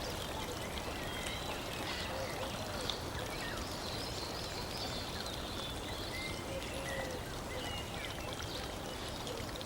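Steady sound of running water with faint, scattered bird chirps over it.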